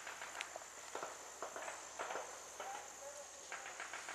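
Irregular footsteps: short scuffs and knocks, unevenly spaced, with a faint distant voice about three seconds in.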